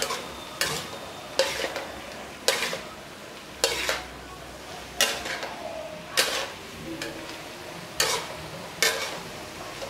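Metal spatula scraping and tossing pickled bamboo shoots and beef in a stainless steel wok: about nine sharp strokes roughly a second apart, with sizzling frying between them.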